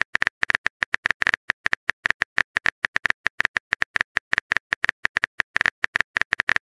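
Phone keyboard typing sound effect: a quick, even run of short clicks, one per letter typed, several a second.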